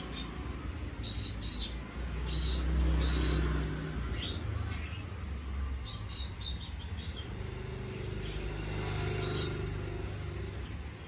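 Low rumble of passing traffic, loudest about two to four seconds in, with short high bird chirps scattered throughout.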